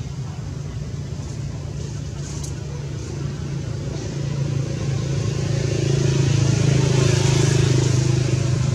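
Steady hum of a motor vehicle's engine, growing louder from about five seconds in.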